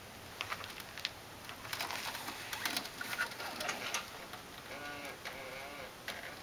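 Scattered light clicks and knocks, with a brief low, wavering call about five seconds in.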